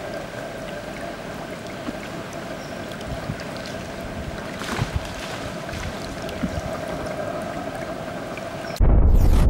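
Toque macaques splashing as they wrestle in shallow river water, with a brief louder splash about halfway through, over steady river ambience with a constant high hum. Near the end a loud deep boom with a falling whoosh cuts in suddenly.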